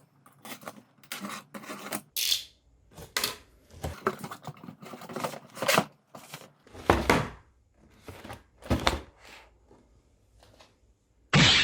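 Shoebox and its paper packing being handled and opened: an irregular string of rustles, scrapes and dull thunks, with a brief louder burst near the end.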